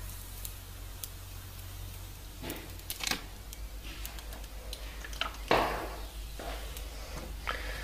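Handling an iPhone 6s and its packaging: scattered light clicks and short rustles, the loudest about five and a half seconds in.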